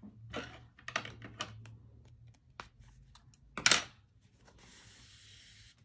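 Hand-sewing handling noise: an embroidery needle worked through the stuffed cotton doll head, with scattered small clicks and rustles and one louder click about halfway through. Near the end comes a steady hiss as the embroidery floss is drawn through the fabric.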